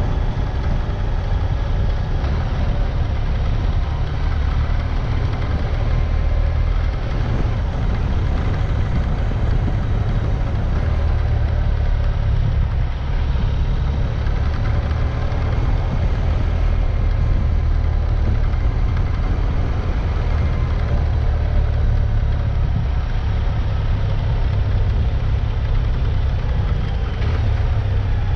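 A vehicle engine running steadily with a heavy low rumble and continuous road noise, heard from the moving vehicle on an off-road drive.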